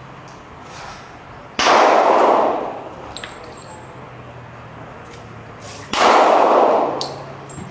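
Two handgun shots about four and a half seconds apart, each starting with a sharp crack and echoing for about a second in the covered firing line.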